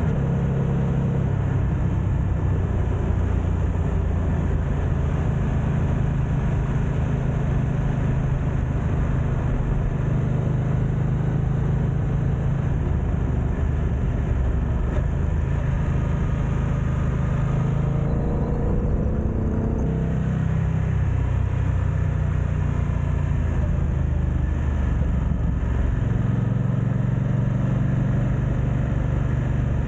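BMW F900XR motorcycle's parallel-twin engine running while riding, its note shifting about two thirds of the way through and again near the end. Wind noise on the camera's built-in microphones runs under it.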